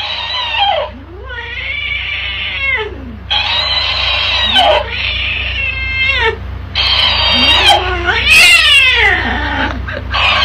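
A tabby cat meowing and yowling in a series of long, drawn-out calls, one after another, at a talking-hamster toy. The toy plays the calls back in a higher, sped-up voice.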